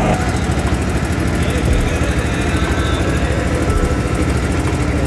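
Motorboat engine running steadily with a rapid, even chugging.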